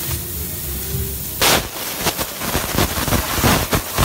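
A low machine hum, then about a second and a half in a CNC plasma cutting torch with a Hypertherm power source fires on steel: a loud hiss full of rapid crackling.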